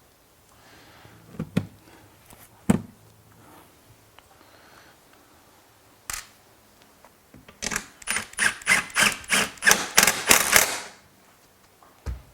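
Hand work on a car seat's metal seat rail: a few separate knocks, then a quick run of about a dozen sharp metallic clicking strokes, four or five a second, lasting about three seconds, and a single thump near the end.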